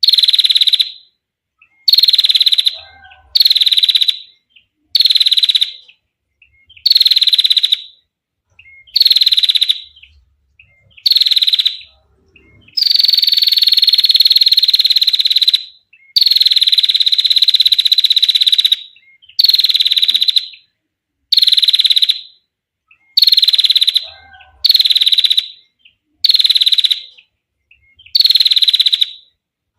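Female prinia (prenjak) giving its rapid, buzzy trilling call. The call comes in short bursts of about a second, repeated roughly every second and a half, with two longer drawn-out trills near the middle.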